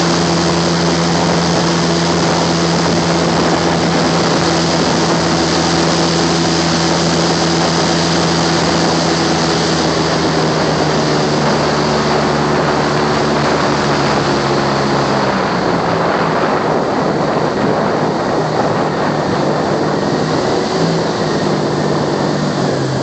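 Boat engine running steadily under way, with a strong hiss over its note. About fifteen seconds in, the engine note drops lower as it throttles back.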